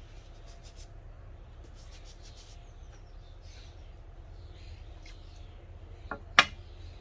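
Brush scrubbing a mesh sneaker in faint, quick strokes, then two sharp knocks near the end, the second one loud. A low steady hum underneath.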